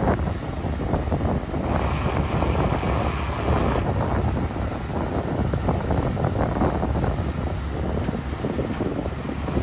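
Heking amphibious excavator's diesel engine running steadily with its hydraulics working as the bucket digs wet mud, with wind buffeting the microphone. About two seconds in, a higher hiss joins for a couple of seconds.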